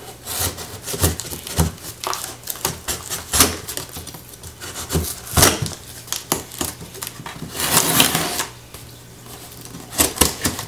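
Knife slitting the packing tape on a cardboard shipping box: irregular scrapes, clicks and crackles of blade, tape and cardboard, with a longer rasping stretch about eight seconds in.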